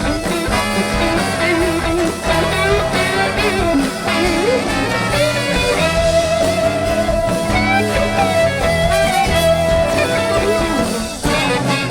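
Live rock band playing an instrumental break: a lead melody line over bass and drums, with one note held for several seconds in the second half. The playing thins out about a second before the end.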